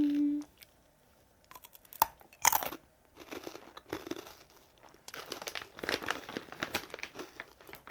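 A person biting into and chewing Matdongsan, a super crunchy, sweet Korean fried-dough snack, with a run of close crunching about three seconds in. A short hummed "mm" comes at the very start.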